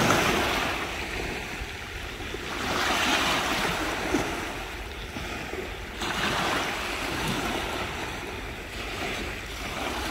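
Surf breaking on a beach, the waves washing in and out in surges about every three seconds.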